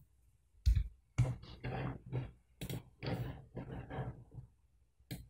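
Quiet clicks and handling noise of a computer mouse and keyboard: a string of short, sharp clicks, the first about a second in.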